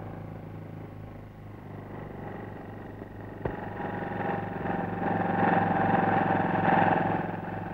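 Motorcycle engine running steadily as the bike travels along. It grows louder about halfway through, then eases off near the end, with a single short click about three and a half seconds in.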